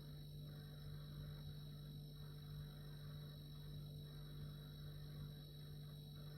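Refrigerator running: a steady low hum with a faint, steady high whine above it.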